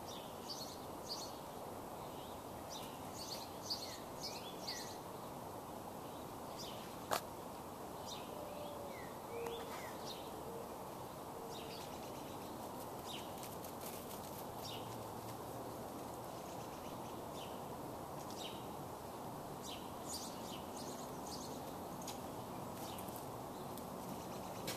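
Outdoor ambience: a steady background rush with many short, high bird chirps scattered throughout, and a single sharp click about seven seconds in.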